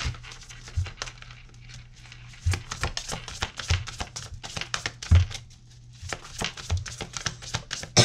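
A deck of tarot cards being shuffled by hand: a quick, continuous flicking and riffling of cards, with several soft low knocks of the deck against the hands.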